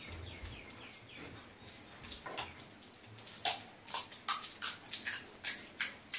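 Close-miked eating noises from people wolfing down pani puri and chow mein: a quick run of about eight sharp, crisp mouth sounds in the second half, roughly three a second. A faint run of short falling chirps comes first.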